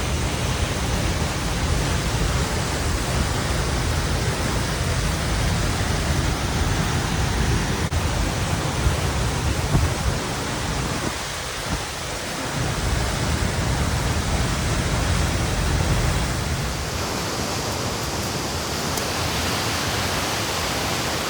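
Wind buffeting the microphone: a steady rush with a gusting low rumble that drops out briefly near the middle and eases off in the last few seconds.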